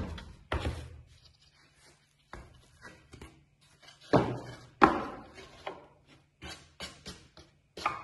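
Thin wooden guitar-top plates being picked up, flipped and set down on a stack, knocking and sliding against one another: about a dozen sharp wooden knocks with brief scrapes, the loudest about four and five seconds in.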